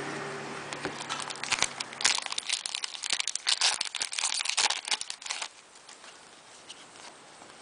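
Plastic wrapper of a hockey card pack being torn open and crinkled by hand: a dense run of sharp crackles for about four seconds, then it goes quiet.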